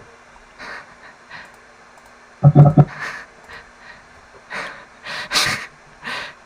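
A person breathing hard in separate, breathy huffs close to the microphone, with one short, loud, low voiced grunt about two and a half seconds in.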